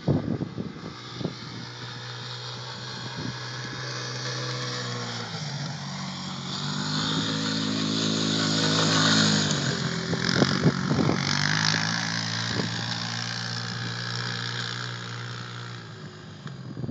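Polaris Sawtooth ATV engine running. Its pitch and loudness rise as the quad accelerates and comes close, loudest about nine seconds in, then fall back to a steady, quieter drone as it rides away.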